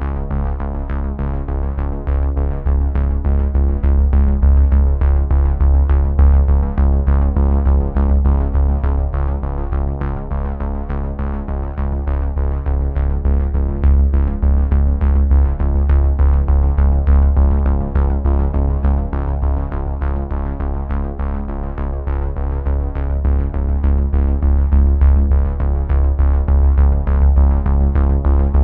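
Background music: sustained held tones over a steady, regular beat.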